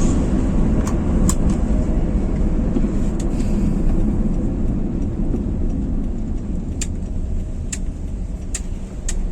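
Cabin noise of a freshly tuned-up Daihatsu Xenia 1.3-litre on the move: steady engine and road rumble that slowly eases, with several short sharp clicks.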